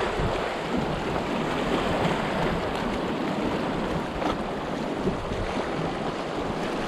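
Fast-flowing, muddy creek water rushing and splashing around the nose of a stand-up paddleboard as it runs down the creek, a steady rush of water.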